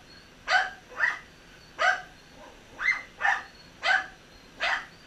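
A dog barking repeatedly: about seven short, sharp barks spaced roughly half a second to a second apart.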